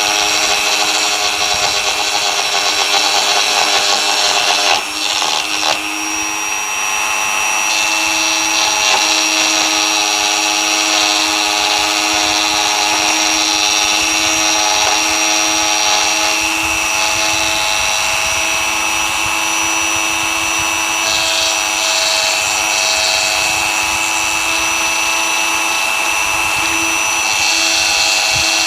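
Dremel rotary tool running at high speed with a 3 mm end mill fitted, milling a test cut: a steady high motor whine with a hiss of cutting that grows and fades several times, and a brief dip about five seconds in.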